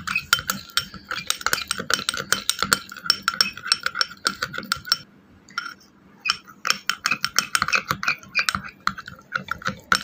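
Metal spoon stirring paste in a glass bowl, clinking and scraping rapidly against the sides. The stirring stops for about a second and a half around the middle, then starts again.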